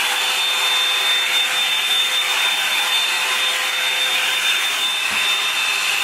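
Revlon 2-in-1 blow dryer and volumizer brush running steadily: a loud rush of blown air with a thin, steady high-pitched motor whine.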